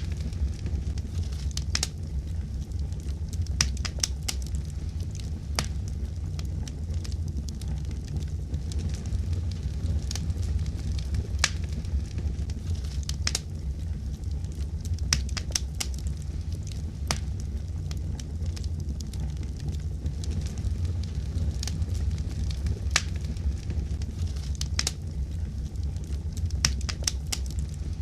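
Wood fire crackling in a fireplace, with many sharp, irregular pops over a low, steady rumble.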